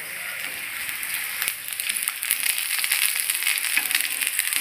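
Oil sizzling and crackling on a hot dosa griddle as a meat-filled pathiri fries, getting louder as it goes.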